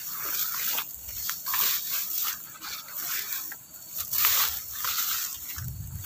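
Tall grass rustling and swishing in irregular bursts as someone pushes through it on foot.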